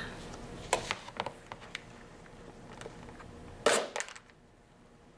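EpiPen auto-injector firing: a sharp spring-released snap about three and a half seconds in, followed at once by two quick lighter clicks. A lighter click and faint handling ticks come before it.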